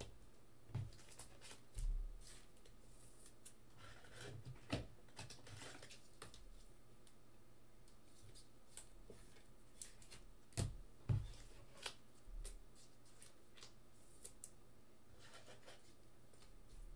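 Trading cards and card packs being handled at a desk: quiet, scattered clicks and rustles with a few soft low knocks. The loudest knocks come about two seconds in and again about eleven seconds in.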